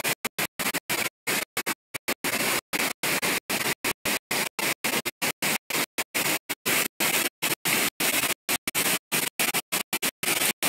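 Roar of a waterfall pouring over a rock ledge, a steady wash of water noise. It is chopped by many abrupt dropouts to silence, several per second, a glitch in the recording.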